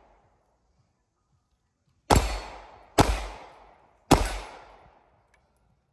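Three gunshots about a second apart, each ringing out briefly as it fades, fired in a range drill.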